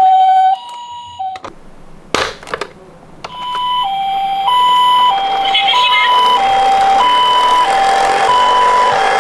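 Japanese-style two-tone ambulance siren, 'pee-po', switching between a high and a low tone about every half second. It breaks off about a second and a half in, a few sharp clicks follow, then the siren starts again about four seconds in over a rising rushing noise.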